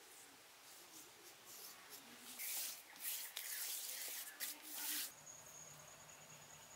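Hands rubbing and smoothing damp clay, a scratchy hiss in several strokes over about three seconds. About five seconds in, a steady high thin whine begins.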